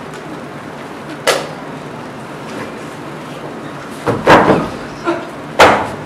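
Sharp knocks and thumps of actors moving on a wooden stage floor: one about a second in, a quick cluster around four seconds in, and a loud one near the end.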